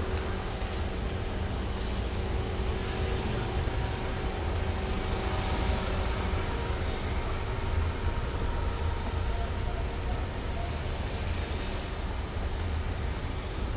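Steady motor vehicle running, a constant low engine and road rumble with no change in pace.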